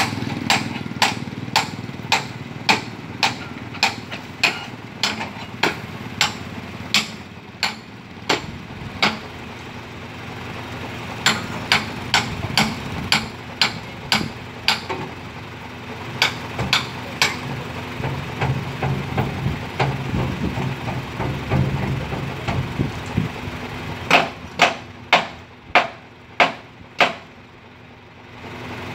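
Repeated hammer blows on the steel tailgate of a dump truck, coming about one to two a second in runs with pauses between, each a sharp ringing strike. A truck engine idles steadily underneath, a little louder in the middle.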